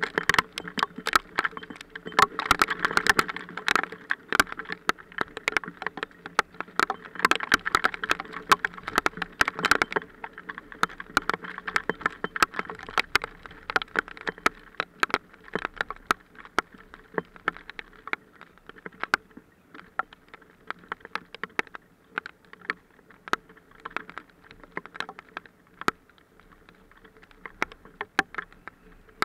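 Hailstones falling and striking close around the microphone as a dense patter of sharp, irregular clicks, heaviest in the first ten seconds and thinning out after. A faint steady low drone runs underneath.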